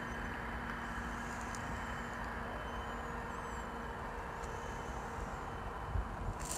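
Steady outdoor background rumble of distant road traffic with a faint constant hum, and a couple of low bumps near the end.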